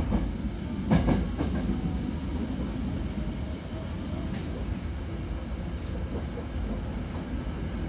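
Hankyu Kyoto Line train running at speed, heard from inside the car: a steady rumble of wheels on the rails, with a few sharp knocks at the start and about a second in.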